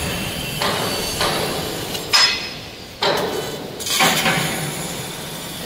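A series of sharp metallic knocks and clanks, about five in four seconds, the loudest about two seconds in, each with a short ringing tail, over steady machine noise.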